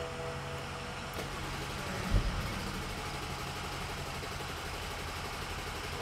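Steady low hum inside the cabin of a stalled 2013 BMW 335i with an N55 engine that will not restart, with one low thump about two seconds in.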